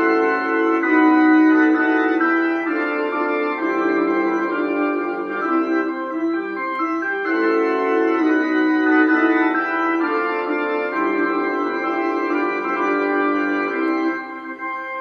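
Instrumental organ music, a melody of sustained keyboard notes, playing from an animated skeleton bride-and-groom Halloween prop as it dances.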